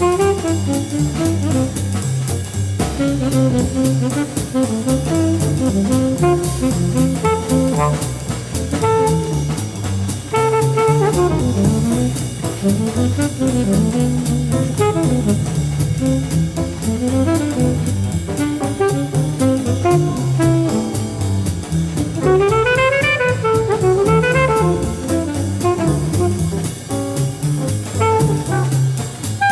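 Live jazz: an alto saxophone plays a flowing melodic line over double bass and drum kit, breaking into quick rising and falling runs near the end.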